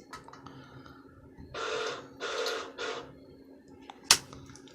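Chicago Electric wire welder striking an arc on scrap metal in three short sputtering bursts, over the steady hum of the running machine, with a sharp click near the end. The arc does not hold, which the owner puts down to the extension cord not being fully uncoiled.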